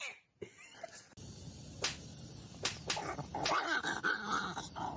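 A dog whimpering and whining, a wavering high sound in the second half, after a few sharp clicks or knocks.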